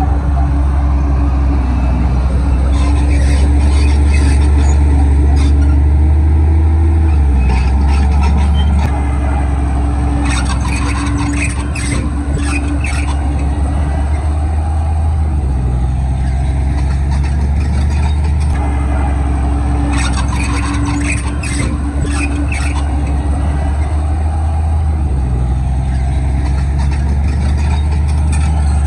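Komatsu bulldozer's diesel engine working under load, its note dipping and dropping about seven seconds in. Bursts of metallic clanking and squealing from the tracks come around ten seconds in and again around twenty seconds in.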